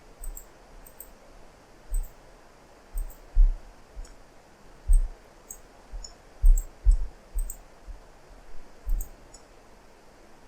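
Computer mouse and keyboard clicking: about a dozen short, irregularly spaced clicks, some with a dull low thump, over a faint steady hiss.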